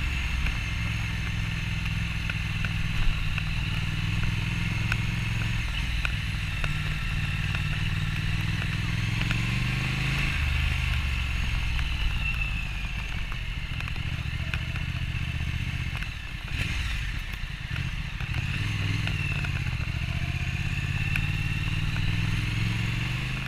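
Triumph Thruxton RS's 1200cc parallel-twin engine and exhaust, heard from the rider's seat at town speeds, the engine note rising and falling with the throttle. It eases off briefly about two-thirds of the way in.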